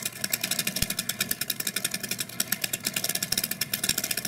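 Hand-cranked rotating title drum turning, its mechanism giving a rapid, even run of clicks as the crank is wound.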